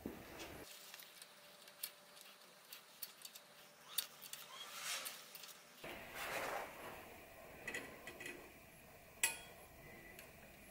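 Small metal bicycle parts being handled and fitted to a steel frame: scattered light metallic clicks and clinks, with one sharp click about nine seconds in as the loudest.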